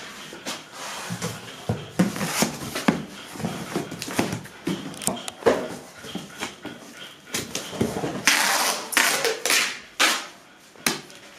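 A cardboard carton being handled, its flaps folded and knocked down, then brown-box packing tape pulled off a hand-held roll with a long tearing screech about eight seconds in and pressed along the seam, with a few shorter tape pulls after.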